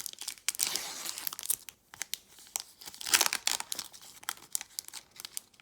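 Foil wrapper of a Pokémon TCG Evolutions booster pack crinkling and tearing as it is opened by hand, with the loudest rip about three seconds in.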